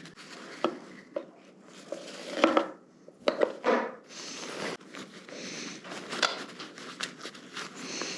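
Hand-work on motorcycle parts: scattered clicks and knocks of small parts and tools being handled, with rustling between them, and a cluster of sharper knocks around the middle.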